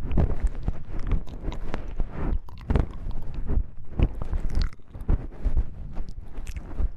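Close-miked ASMR trigger sounds: a dense, irregular run of crackling clicks and soft thumps right at the microphone.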